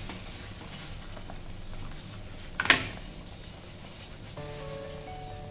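Water at a rolling boil bubbling in a steel saucepan over a gas burner, with one short sharp knock about two and a half seconds in. Soft background music with held notes comes in about four seconds in.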